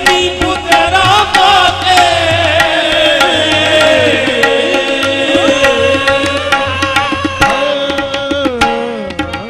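Qawwali music: tabla strokes and harmonium under long, sliding sung notes from the qawwals. The level drops off near the end.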